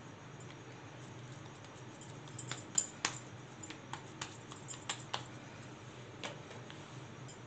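Light clicks and taps of hands working a ball of layered paratha dough and setting it down on a plate, about a dozen of them bunched in the middle, over a faint steady low hum.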